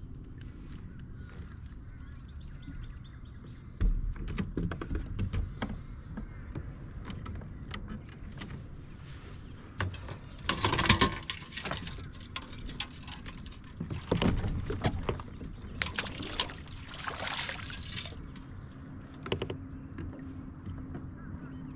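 Knocks, clicks and rattles of gear being handled on a fishing kayak, over a low rumble. There are a few louder rough, noisy bursts about halfway through and again a few seconds later.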